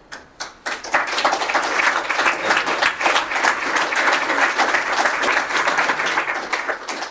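Audience applauding at the end of a lecture. A few scattered claps start it, then the clapping fills in about a second in and thins out near the end.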